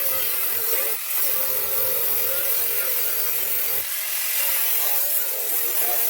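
Power tool cutting through the sheet steel of a car trunk lid, cutting out rusted sections. It runs steadily with a wavering whine, easing off briefly about a second in and again just before four seconds.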